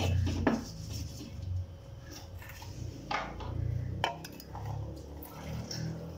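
A few sharp clinks and knocks of a steel bowl and a stone pestle against a stone mortar (cobek), with chopped bird's-eye chillies being tipped into the mortar near the end.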